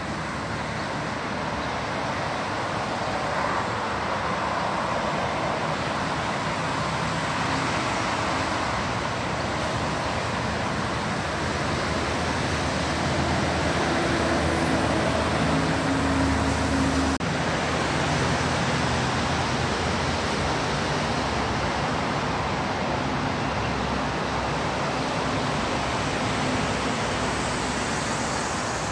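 Steady outdoor city din, the wash of road traffic around an elevated rail station, with a low engine-like hum underneath that swells toward the middle and changes abruptly about two-thirds of the way through.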